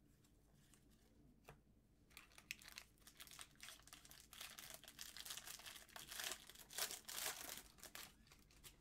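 A trading-card pack wrapper being torn open and crinkled. The sound is faint: quiet at first with a single click, then a dense crinkly rustle from about two seconds in that grows louder toward the end.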